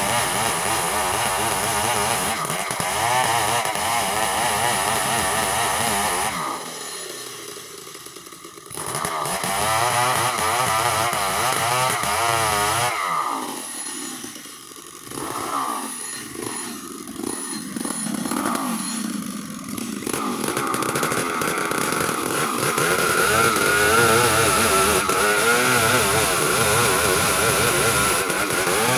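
Two-stroke chainsaw running at varying revs. It twice drops back toward idle, about a quarter and half way through, then runs steadily at full throttle near the end as it rips lengthwise through a log to cut a plank.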